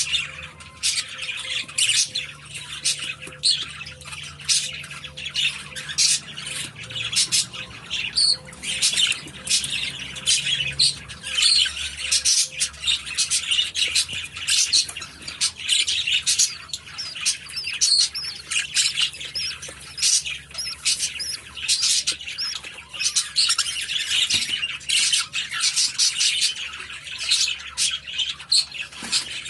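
English budgerigars chirping and squawking rapidly and without a break, a dense, high-pitched chatter.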